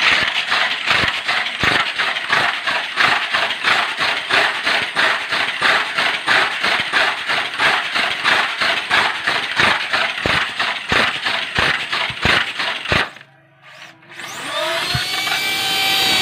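Tamiya mini 4WD car with a rewound high-speed 'dinamo setan' motor running on a plastic slot track: a loud motor whine with a fast, even pulsing of about three to four beats a second. It cuts out suddenly near the end, then a whine rises in pitch as the motor spins up again with the car lifted off the track.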